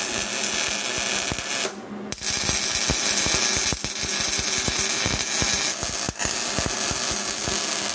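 Wire-feed welder arc crackling and hissing steadily over a low hum as a steel engine-mount bracket is welded to the frame rail, with a short break about two seconds in.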